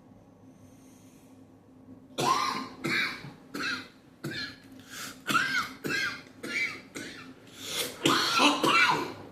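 A man coughing in a long fit of about a dozen hard coughs one after another, starting about two seconds in. The fit comes from smoking marijuana.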